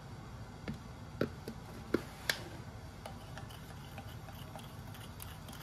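Metal spoon clicking and scraping against a ceramic bowl, a handful of light, irregular taps while ghee and cornflour are stirred together.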